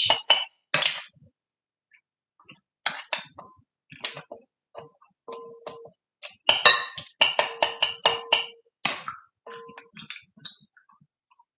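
A spoon clinking and scraping against a glass jar while scooping out pickled peppers, onions and carrots in vinegar. Scattered clinks with short glassy rings at first, then a quick run of clinks in the middle, thinning out near the end.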